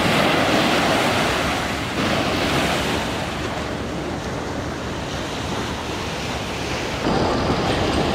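Small sea waves breaking and washing up on a sandy beach, a steady rushing wash with wind on the microphone, swelling a little about two seconds in and again near the end.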